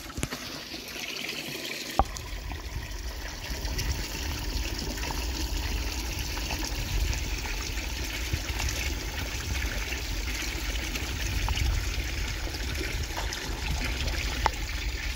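Pond water trickling from a small fountain, with a click about two seconds in and then a steady low rumbling of water against the microphone as the camera is held in the pond.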